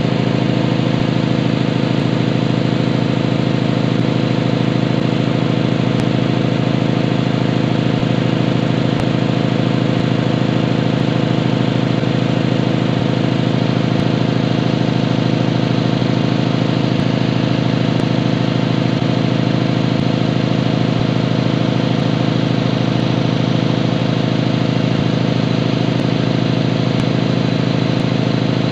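Tanabe HC-277A marine reciprocating main air compressor running steadily under load, charging up pressure.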